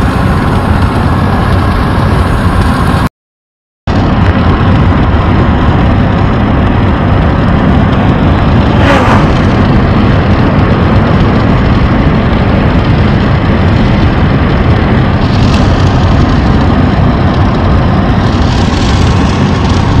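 Steady road and engine noise inside the cabin of a moving Opel car at highway speed. It cuts out completely for under a second about three seconds in, then carries on unchanged.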